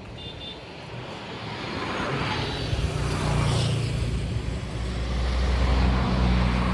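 A vehicle engine running and growing louder over the first few seconds, then holding a low steady hum.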